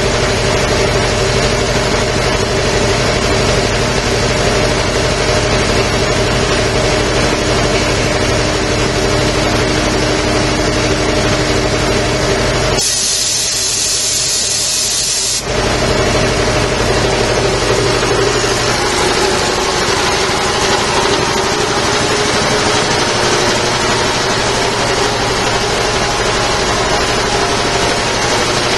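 Quincy QR 325 electric air compressor running steadily while filling its tank, its air intake fitted with a muffler. About 13 seconds in, the timed automatic tank drain valve purges with a sharp hiss of escaping air for about three seconds, then the compressor runs on alone.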